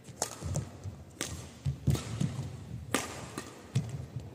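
A badminton rally: a racket strikes the shuttlecock with a sharp crack twice, about two seconds apart, with low thuds of players' footwork on the court in between.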